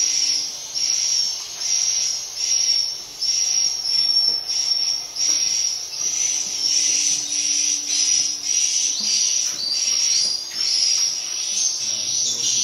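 Swiftlet calls: high, buzzy chirps repeated over and over in quick succession, with no break.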